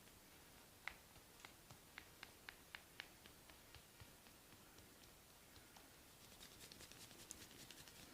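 Faint, close clicks and taps of hands working on skin during a massage: a run of light taps about three to four a second that fades out, then a quicker, fainter patter of high ticks near the end.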